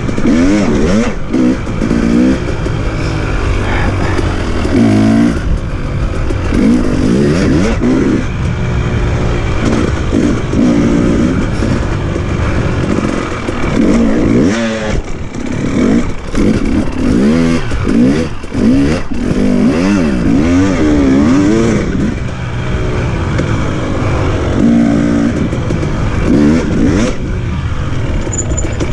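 Husqvarna TE 300i's two-stroke single-cylinder engine revving up and down over and over as the enduro bike is ridden along a rough dirt trail, the throttle opened and shut every second or two.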